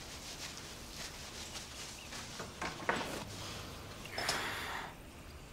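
Footsteps across a hard floor, a sharp latch click about three seconds in, then a wooden door being pulled open with a short swish.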